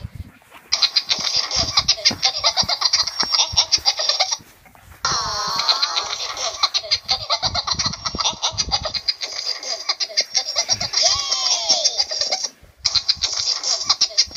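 High-pitched, squeaky laughter and giggling from several voices at once, in long stretches broken by three short pauses.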